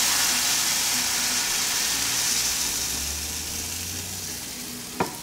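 Blended tomato salsa sizzling as it is poured into a skillet of hot oil, the frying hiss slowly dying down. It fries the moment it hits the pan, the sign the oil is hot enough. There is one sharp knock near the end.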